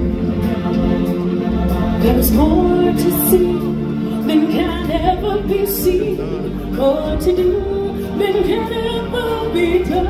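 Live stage-show music: voices singing a melody over a band with a steady bass line and drum hits.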